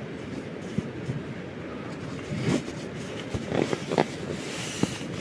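Nylon stuff sack of a sleeping bag being handled: the drawstring is worked loose, and from about two seconds in the fabric rustles and scrapes in short bursts as the sack is opened and the bag pulled out, over a steady low background rush.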